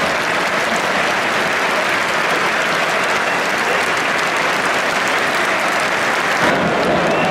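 Football stadium crowd applauding: a dense, steady clatter of many hands clapping.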